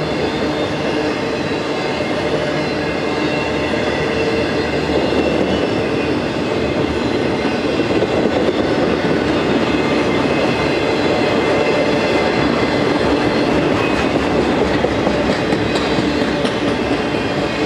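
Freight cars of an intermodal train carrying semi-trailers rolling past, steel wheels on the rails making a steady rolling clatter that grows slightly louder partway through.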